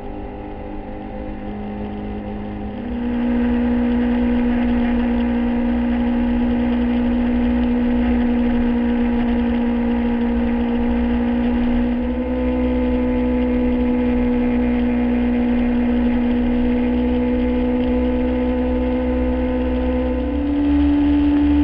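Yamaha YZF-R6's inline-four engine running at steady road speed. About three seconds in it gets louder and the pitch steps up as the throttle opens, and near the end the revs climb as the bike accelerates.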